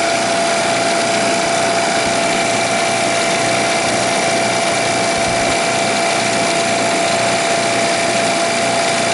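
Refrigerant recovery machine running steadily while it draws the refrigerant out of a refrigeration system into a recovery tank: a constant hum with a steady high whine over it.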